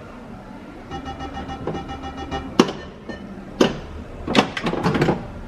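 Pinball machine: a run of electronic tones, then a series of sharp clacks.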